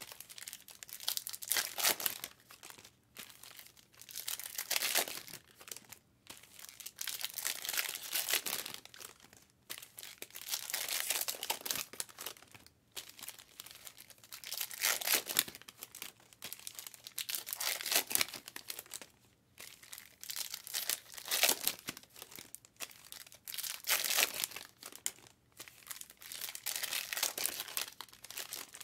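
Foil wrappers of Topps Chrome baseball card packs crinkling and tearing open, with cards handled in between, in irregular bursts of rustling.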